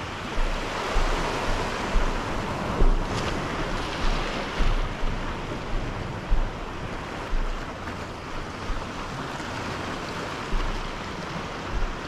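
Sea water lapping and washing, with waves breaking against nearby rocks, and wind buffeting the microphone in repeated low thumps.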